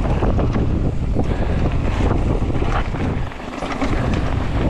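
Wind rushing over the camera microphone as a mountain bike rides fast down a dirt trail, with tyre rumble and frequent short rattles and knocks from the bike over rough ground. The rush eases briefly about three seconds in.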